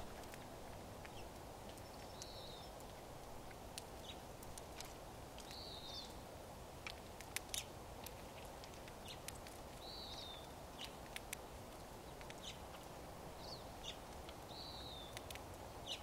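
Finches at tube feeders cracking sunflower seeds: faint, scattered sharp clicks at irregular intervals. A bird's short high call note sounds about every four to five seconds.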